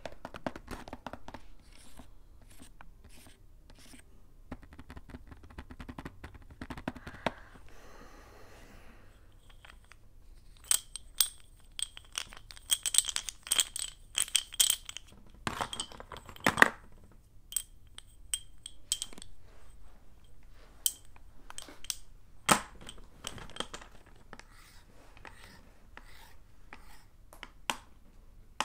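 Sticks of blackboard chalk clicking and clinking together as they are gathered into a bundle in the hand and let fall. The strokes come as a quick run of light knocks, some with a brief high ring, thickest from about a third of the way in to about two thirds. The opening stretch holds softer rubbing and scraping.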